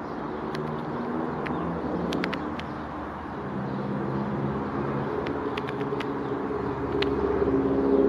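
Low, steady drone of a motor vehicle engine, shifting in pitch and growing louder near the end. A few faint sharp clicks are scattered through it.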